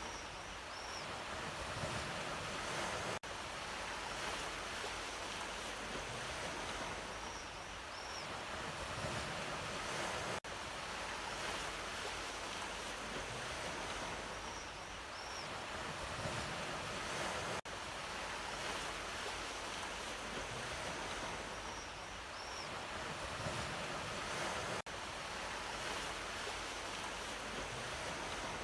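Ocean waves surging and washing onto the shore in a steady surf, with a brief dropout in level about every seven seconds.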